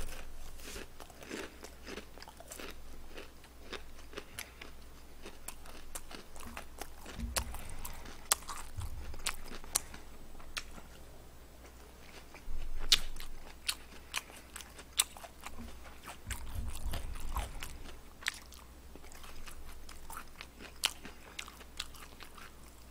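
Close-miked eating of crispy Korean fried chicken: many irregular sharp crunches and wet chewing, with a few dull low thumps.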